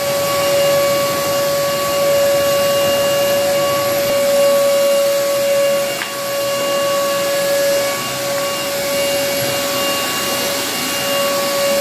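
Vacuum cleaner running steadily, a high motor whine over a rushing hiss, as its floor brush is pushed over carpet.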